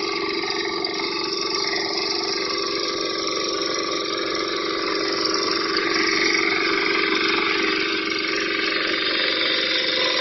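Engine of a BCS 740 walk-behind power tiller running steadily, growing a little louder about halfway through.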